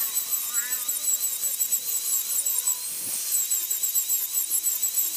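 Angle grinder with a cutting disc running at speed and cutting into the metal rim of a woofer's frame: a steady high whine over a harsh grinding hiss.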